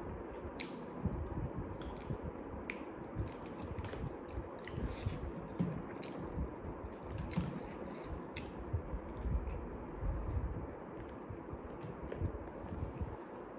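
Close-up chewing of fried chicken, wet and squishy, with many small sharp clicks, while fingers pick at the chicken on its crinkly paper wrapper.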